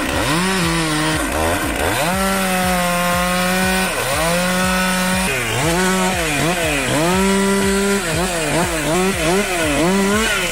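Chainsaw engine revving. The pitch climbs to a held full-throttle note several times and drops back each time the throttle is released. Near the end it is blipped rapidly up and down, about twice a second.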